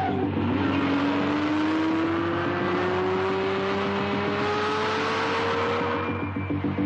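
Sports car engine accelerating in one long pull, its note rising steadily in pitch for about five seconds and then fading near the end.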